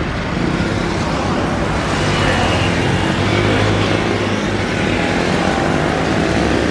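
Airbus A320 twin jet engines at takeoff thrust as the airliner lifts off and climbs: a steady, loud rumble with a low hum, swelling slightly about half a second and again two seconds in.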